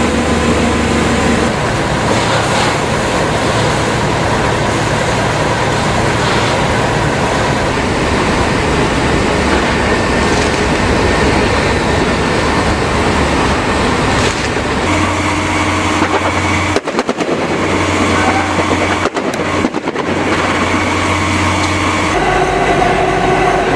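Fire engines running at a burning warehouse: a loud, steady noise, with a steady engine hum coming in about two-thirds of the way through. The sound drops out briefly twice near the end.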